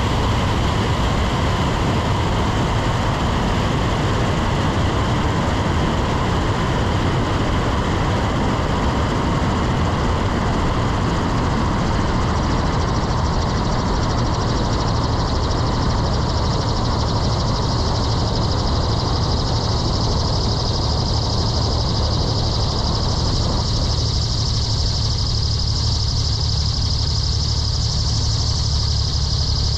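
Pitts aerobatic biplane's piston engine and propeller running steadily at low taxi power. The sound thins slightly in the last few seconds.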